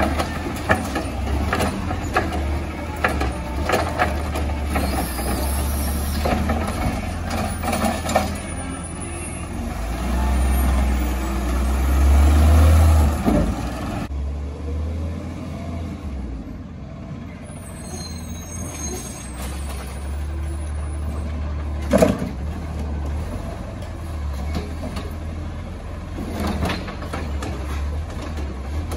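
Recycling truck's diesel engine running steadily, with clanks and knocks of its machinery. The engine rises for a few seconds about ten seconds in, then settles, and a single sharp bang stands out about 22 seconds in.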